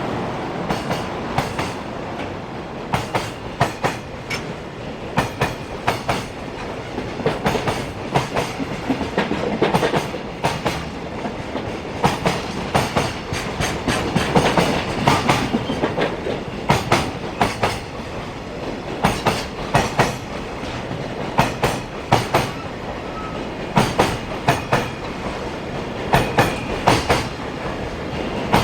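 Container freight train's flat wagons rolling past at speed. Their wheels clatter over the rail joints in repeated clusters of sharp clicks over a steady rolling rumble.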